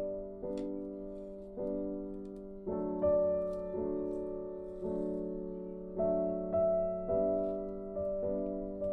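Background music: a slow, soft piano plays chords. A new chord is struck about once a second and left to ring and fade.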